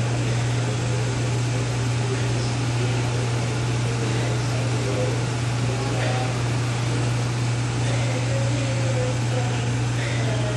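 Steady low hum of air-conditioning or ventilation in a small room, with an even hiss above it.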